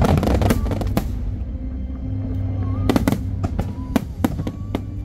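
Aerial fireworks bursting: a rapid cluster of bangs and crackles in the first second, then after a short lull another run of sharp, separate bangs from about three seconds in.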